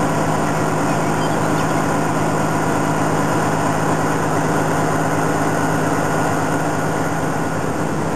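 Semi truck's diesel engine running steadily under road noise, an even low hum that holds level throughout.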